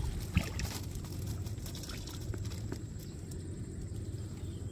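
Light scattered taps and patter from a bamboo slat fish trap being handled and tipped over a wicker basket of small fish, with one sharper knock about half a second in. A steady low rumble runs underneath.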